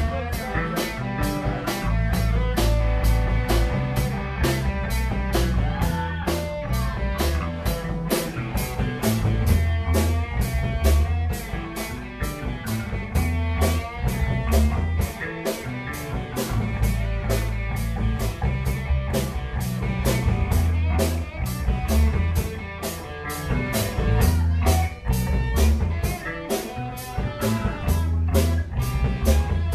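Live band playing amplified electric guitars over a drum kit, with an even beat of cymbal strokes and a heavy bass line.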